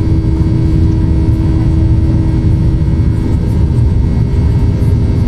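Jet airliner cabin noise in flight: the engines and airflow make a loud, steady low rumble with a steady hum over it.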